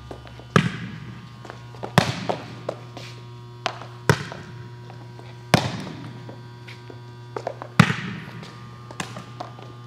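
ASICS Gel Rocket volleyball shoes landing and stepping on an indoor court floor: about six sharp thuds, each echoing in the gym, with lighter taps of footwork between. A steady low hum runs underneath.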